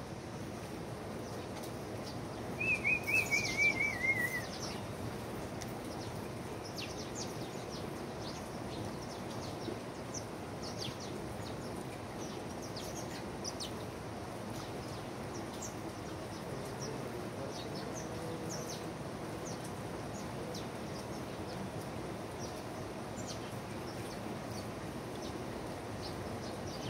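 Wild birds calling: about three seconds in, one bird gives a loud trill of about nine quick notes, falling slightly in pitch and lasting under two seconds. After it, many brief high chirps are scattered throughout, over a steady background hiss.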